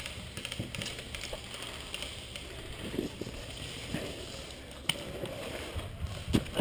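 Rustling and handling noise from a player shifting behind barrels with gear and a pistol in hand, with two sharp clicks, about five seconds in and near the end.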